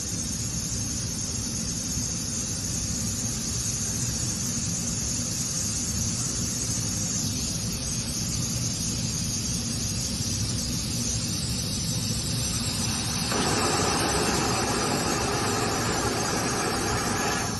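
Laser drilling machine running: a steady hum with a hiss of rushing air. A louder rushing noise joins about thirteen seconds in and stops shortly before the end.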